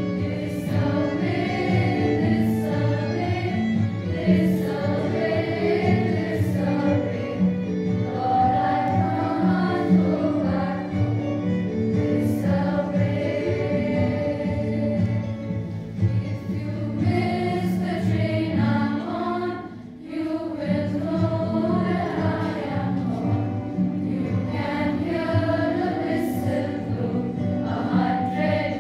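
A group of girls singing a song together as a choir, with a short break between phrases about two-thirds of the way through.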